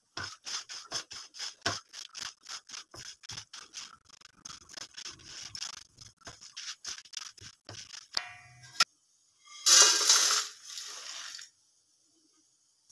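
A spatula scraping and stirring whole spices dry-roasting in a kadai, in quick strokes about four a second, then a sharp click and a louder burst of noise lasting about two seconds near the end.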